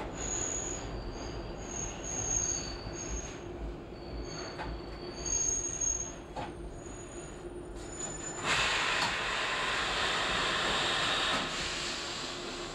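Toronto subway train running, heard from the front car: steady wheel-and-track rumble with high-pitched wheel squeal coming and going through the first half, then a louder rushing hiss for about three seconds as it heads into the tunnel.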